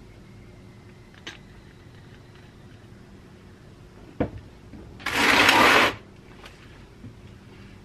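A knock, then a loud harsh rasping burst just under a second long, as the freshly oiled old Frigidaire repulsion-induction motor is worked by hand to free a part that is still stuck.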